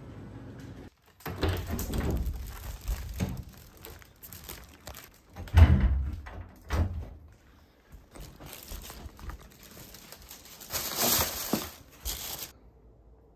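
Irregular handling noises and knocks, with one loud thump a little before the middle, then a plastic shopping bag rustling for about a second and a half near the end before the sound cuts off.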